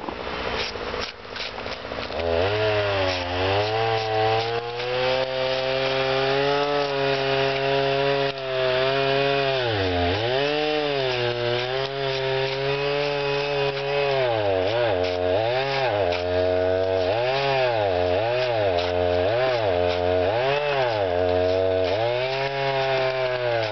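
Power chainsaw cutting into a block of ice. It starts up about two seconds in and runs steadily, its pitch dipping once and then again and again, about once a second, as it bites into the ice.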